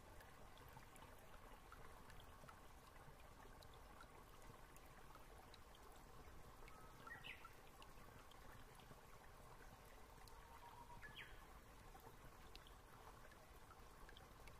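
Near silence: faint steady background hiss, with two faint brief rising tones about seven and eleven seconds in.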